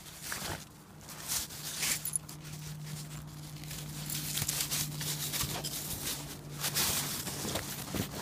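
Snow crunching and scraping under a golden retriever rolling and squirming on its back in it, in irregular scratchy rustles.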